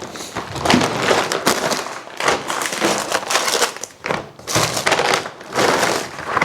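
Food packaging and bags rustling and crinkling as groceries are handled and unpacked, in loud irregular bursts with brief pauses.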